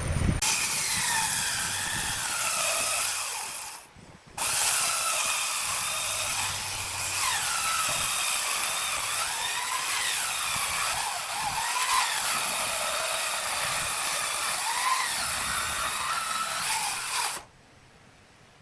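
Handheld power tool working wood, its motor whine dipping and recovering as it bites. It stops briefly about four seconds in, runs again, and cuts off about a second before the end.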